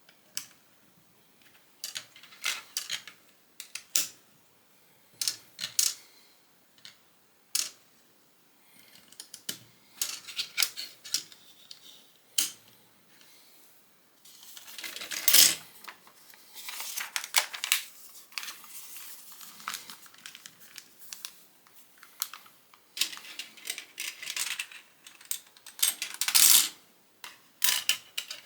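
Plastic Lego bricks clicking and clattering as small pieces are picked up, set down and pressed together, with a few longer stretches of rattling among loose pieces.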